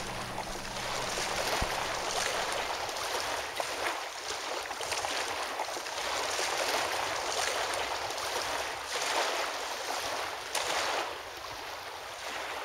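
Water rushing and lapping in uneven swells, with no motor running.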